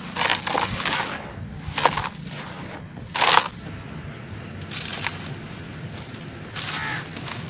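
Brittle charcoal-sand biscuits crunching and crumbling in water, in several separate bursts of crackling, the loudest about three seconds in.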